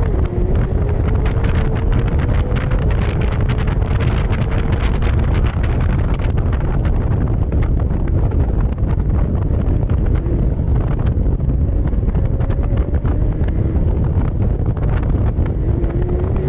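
Heavy wind buffeting on a microphone on the rear deck of a McLaren Senna at track speed. Under it, the car's twin-turbo V8 is heard as a thin tone that rises with revs, drops at a gear change near the start, and climbs again near the end.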